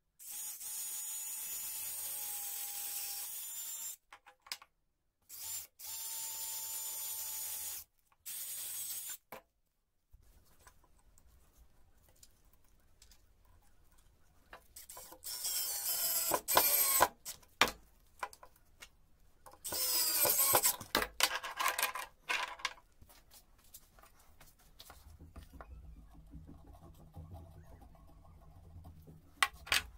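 Cordless drill boring a hole into a wooden block, running steadily in three short runs in the first nine seconds. Then two louder bursts of a spinning power tool whose pitch glides up and down, about fifteen and twenty seconds in, followed by light handling clicks.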